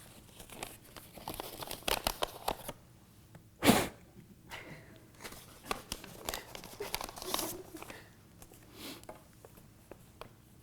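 Paper envelope being torn open and handled, with irregular tearing and crinkling and one louder burst about three and a half seconds in.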